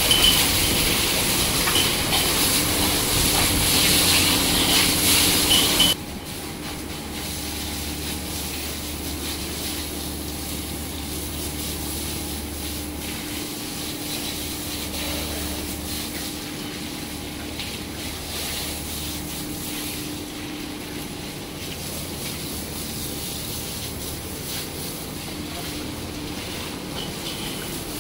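Water from a hose spraying onto a bull's wet hide, a loud steady hiss that drops off abruptly about six seconds in to a quieter steady rush with a low hum underneath.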